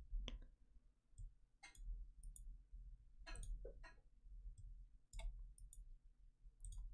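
Faint computer mouse clicks, a handful at irregular intervals, over a low steady hum.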